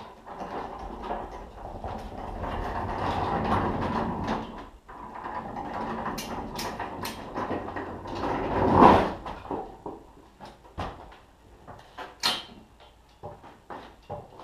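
Manual hand pallet jack rolling a wooden pallet over a concrete floor: a rattling rumble, with a loud clunk about nine seconds in, then scattered clicks and knocks as the jack is positioned.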